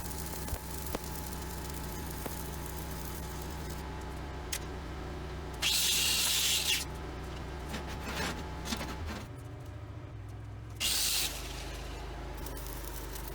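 A steady low machine hum, broken by two short, loud bursts of hiss: the first about a second long near the middle, the second shorter a few seconds later.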